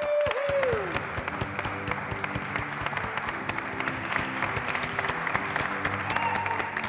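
Applause, a dense steady clatter of clapping, with music playing underneath.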